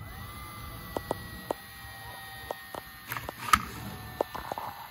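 DeWalt 20V cordless heat gun running: a steady fan hum with a high whine that rises into place as it starts. It is heating solder-seal butt connectors on a wiring harness to shrink them. A few sharp clicks sound over it.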